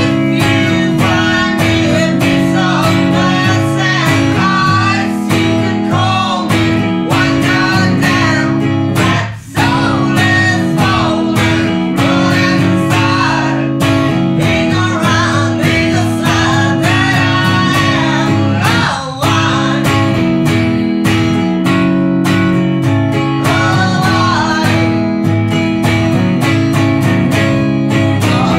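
Blues song played on acoustic guitars: steady strummed chords under a melody line that bends in pitch, with two short breaks between phrases.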